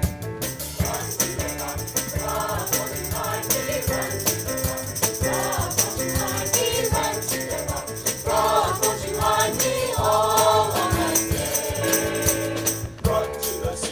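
A choir singing over an instrumental accompaniment with a steady beat and bright high percussion; the voices come in about a second in.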